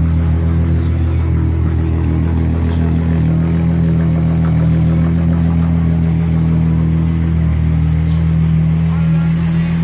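Mk3 Volkswagen VR6 narrow-angle V6 idling steadily, heard from behind the car at the exhaust tailpipe. The engine has an intermittent misfire that the owner blames on a failing coil pack.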